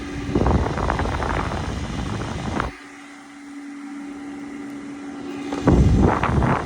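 Small 12-volt DC fan running on a bench supply with a steady hum. Its airflow rushes loudly against the microphone for the first couple of seconds and again near the end.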